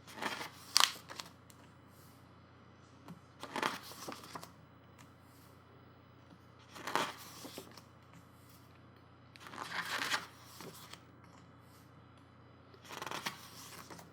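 Pages of a thick photobook being turned one at a time: five brief paper rustles about three seconds apart, with a sharp paper snap in the first, about a second in.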